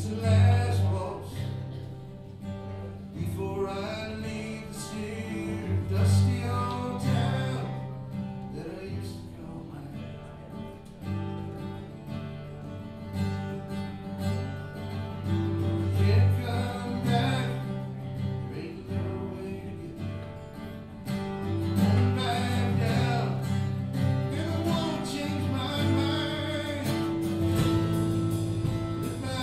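A live band playing a song, with acoustic guitar, electric guitar and electric bass guitar.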